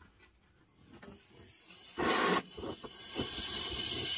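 Gas heating torch flame hissing steadily as it heats a rusty exhaust manifold bolt, after a short loud rush of noise about halfway in.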